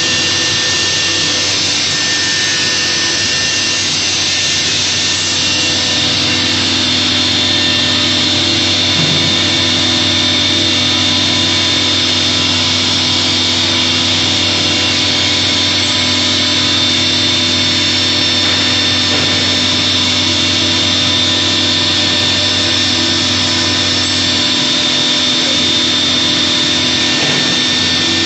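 4-axis CNC router's spindle running with a steady high-pitched whine as it drills holes into a curved plywood panel.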